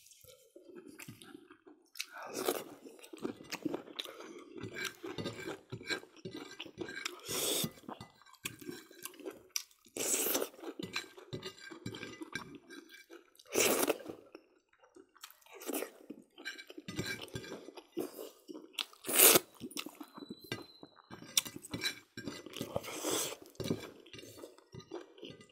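Close-up eating sounds: people chewing pork and rice with their mouths open, mixed with fingers scraping food across plates and light clinks of dishes. There is a scatter of short, irregular noises, with a few louder sharp clacks at intervals.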